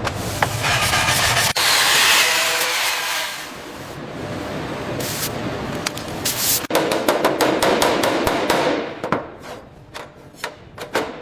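Workshop tool sounds: a rasping, rubbing noise for the first few seconds, then a quick run of sharp hammer-like knocks that thin out near the end.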